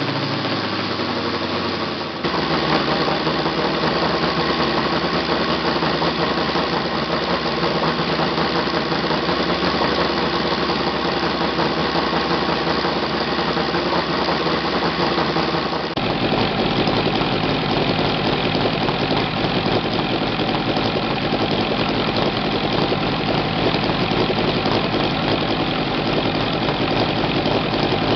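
ASP FS400 AR five-cylinder four-stroke radial model engine running steadily with its propeller, minutes after a hand-started cold start. Its tone changes abruptly about two seconds in and again about halfway through.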